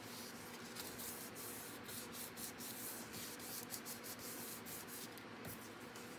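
Hands rubbing over cardstock, smoothing a paper card panel flat with a run of irregular rubbing strokes that die away about five and a half seconds in.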